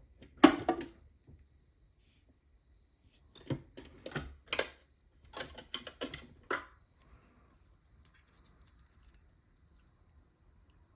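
Small metal clicks and knocks of a padlock and picking tools being handled: a pair of sharp clicks about half a second in, then a quick run of clicks and taps between about three and a half and six and a half seconds, then only faint ticks. A faint steady high whine sits underneath.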